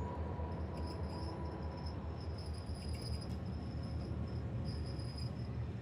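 Mauritanian iron ore train rolling along slowly: a steady low rumble with a high-pitched ringing tone that comes and goes over it.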